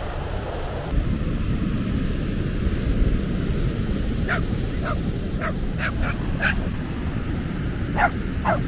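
A dog barking: a run of about six quick, short barks in the middle, then two more near the end, over a steady low rumble.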